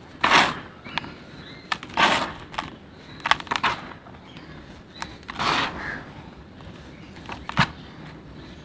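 Dry red dirt being crumbled and squeezed by hand in a basin: three gritty rushes of crumbling with scattered sharp clicks between them.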